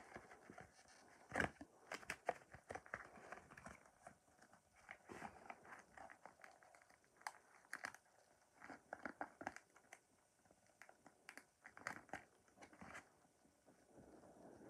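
Near silence with faint, scattered clicks and rustles of small plastic dolls and doll clothes being handled, in several short clusters.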